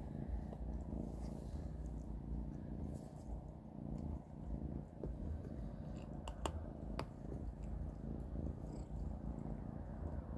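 Kitten purring steadily in a low, pulsing rumble, with a few sharp clicks a little past the middle.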